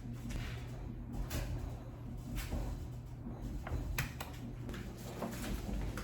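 Household handling noises: scattered soft clicks, knocks and brief scrapes over a steady low hum.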